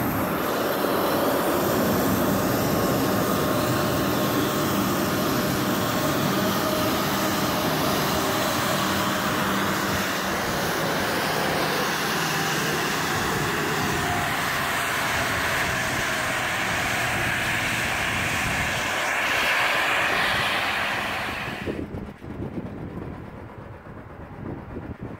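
Embraer E190-based business jet's turbines running steadily: a loud rush with a steady whine. Near the end it drops abruptly to a much quieter low hum.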